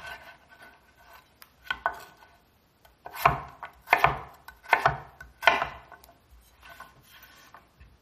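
Chef's knife slicing raw potatoes into fry sticks on a wooden end-grain cutting board: a series of sharp cutting strokes, the blade knocking the board each time. The firmest strokes come in a run from about three to six seconds in.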